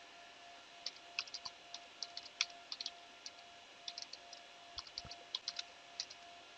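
Typing on a computer keyboard: irregular keystrokes starting about a second in and stopping just after six seconds, over a faint steady hum.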